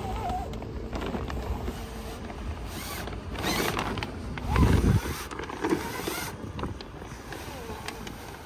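Stiff new mainsail sailcloth rustling and crinkling in bursts as the sail is handled and a batten is worked into its pocket, with a loud low bump about halfway through.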